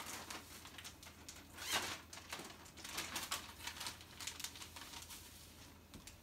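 Plastic bag rustling and crinkling in irregular shakes as catfish fillets are tossed in cornmeal inside it to coat them.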